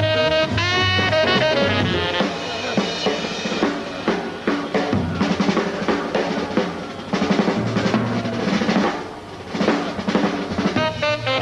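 Jazz drum kit break in a swing recording, snare, bass drum and cymbals playing busily after a tenor saxophone phrase ends about two seconds in; the tenor sax comes back in near the end.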